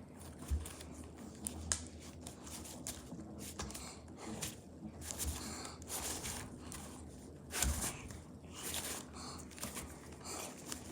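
Play-Doh Slime Super Cloud worked by hand, giving faint irregular crackles and small pops, with a few sharper snaps about half a second in, near two seconds and near eight seconds.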